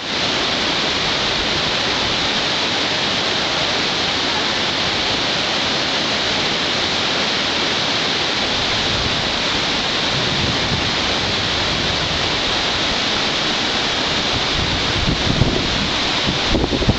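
A river in flood rushing past below, a steady, heavy rush of water. Gusts of wind buffet the microphone near the end.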